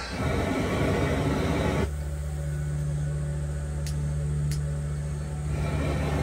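Machinery running: a broad rushing noise that drops off about two seconds in to a steady low hum, with two faint clicks, and the rushing noise building again near the end.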